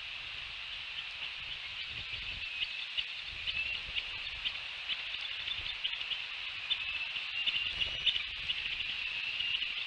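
Bald eaglets' quick, soft high chirps and ticks during a feeding, growing busier after the first second or so, over a steady high-pitched background drone. A few low rumbles of wind or movement on the microphone come through.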